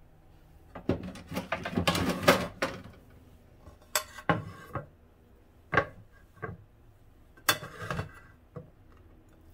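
Clatter and clinks of a ceramic plate and a metal spoon being handled and set down on a wooden cutting board: a busy run of knocks in the first few seconds, then a few single clinks and a short last clatter near the end.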